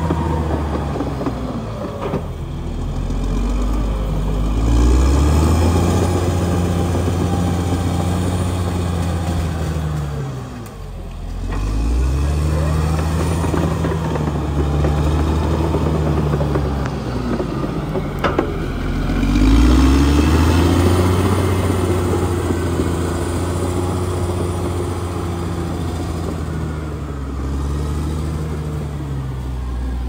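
Caterpillar D6R XL bulldozer's diesel engine working as the dozer pushes soil and brush, its note dropping and climbing back up about three times as the load changes. There is one sharp knock about two-thirds of the way in.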